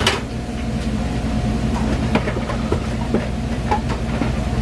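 Busy food truck kitchen: a steady low mechanical hum from the range-hood exhaust fan and gas burners, with scattered clinks and knocks of utensils on pans. There is a sharp clatter right at the start.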